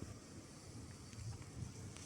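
Daikin split air conditioner running faintly: a low steady hum with a soft airy hiss.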